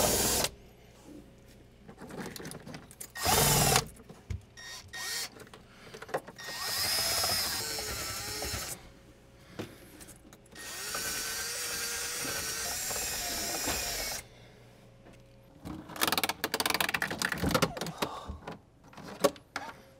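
Cordless drill spinning a battery post-cleaner brush on lead-acid battery terminals, scrubbing off corrosion. It runs in several bursts of a few seconds each, with handling clatter between.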